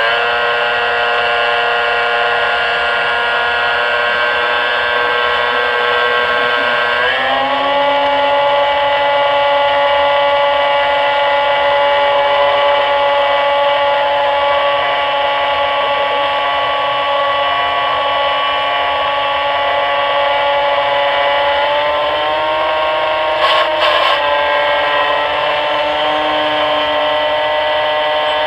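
Small model-airplane engine running steadily at high revs, a buzzing drone with a strong stack of harmonics; its pitch steps up with throttle about a quarter of the way in, rises a little again near the end and then drops back. A couple of sharp clicks sound just before the pitch drops.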